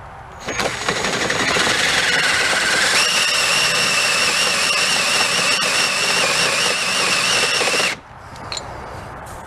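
Cordless drill boring into the underside of an aluminium piston, cutting away metal to lighten it: a steady motor whine with cutting chatter. It starts about half a second in, steps up in pitch about three seconds in, and cuts off suddenly about eight seconds in.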